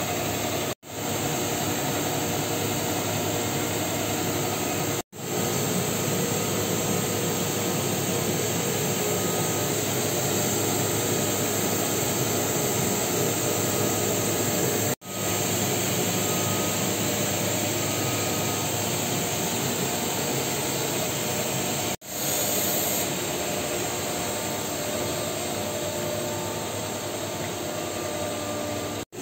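Steady roar and hiss of running machinery and ventilation in a printing plant's press hall. The sound cuts out abruptly for an instant four times and then resumes.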